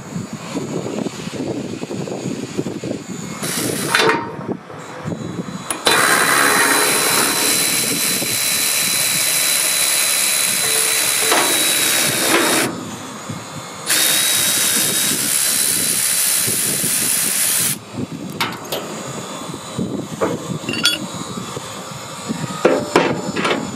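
Milwaukee cordless ratchet running in two long bursts of several seconds each with a steady high whine, turning an extracting bolt to pull a blade wedge from a chipper drum. A short burst comes a few seconds in, and metal clinks near the end.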